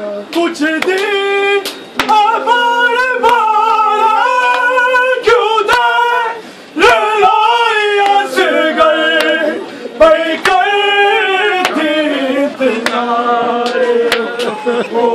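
Unaccompanied voices singing a noha, a Muharram mourning lament, in long held, wavering notes, with scattered sharp hand slaps of matam chest-beating.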